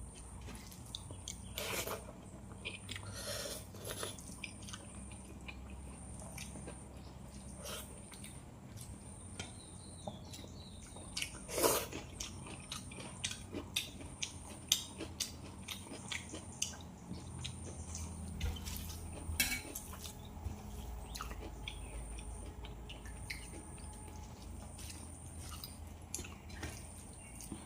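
Close-miked eating sounds: chewing, with scattered small clicks and clinks of food being handled on a plate over a low steady hum.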